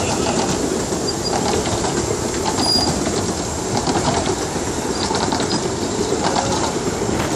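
Narrow-gauge railway passenger carriages rolling past on the track: a steady rumble of wheels with light clicking over the rail joints and a few brief high squeaks.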